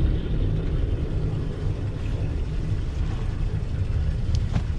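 Wind buffeting the camera microphone on an open boat deck: a steady low rumble, with a couple of faint clicks near the end.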